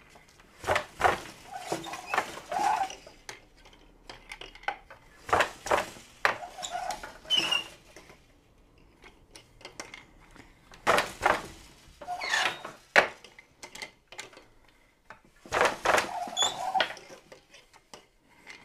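Wooden floor loom working in four rhythmic bursts of clatter, about every four to five seconds: shafts lifting and dropping on the pedals, the shuttle passing through, and the beater knocking the weft into place.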